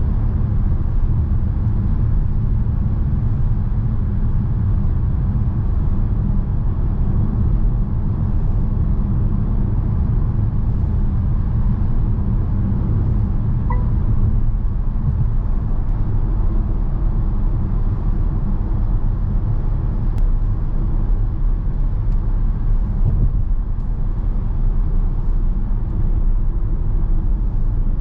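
Mercedes-Benz V 300 d van's four-cylinder diesel and road noise at a steady cruise, a constant low drone with no revving. A brief faint beep about halfway through.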